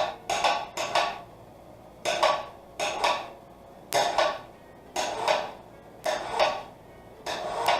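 Repeated scraping strokes of a hand tool on metal, about eight in a rough back-and-forth rhythm, roughly one a second.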